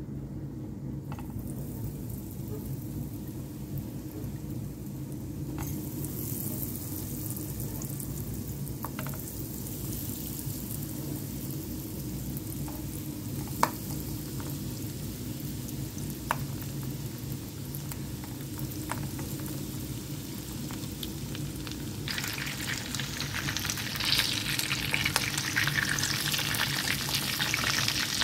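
Breaded chicken drumsticks sizzling in hot oil in a frying pan, with a few sharp clicks as pieces are set in the pan. The sizzle grows much louder over the last several seconds. A steady low hum runs underneath.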